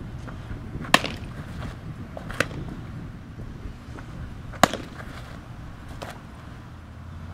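Softball popping into leather gloves four times. Two loud pops are the catcher's mitt receiving the ball, and each is followed about a second and a half later by a fainter pop as the fielder at third base catches the throw.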